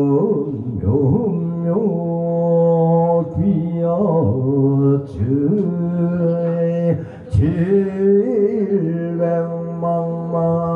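A single male voice chanting a Korean Buddhist memorial invocation in long drawn-out notes with slow pitch bends. It breaks off briefly about three and seven seconds in.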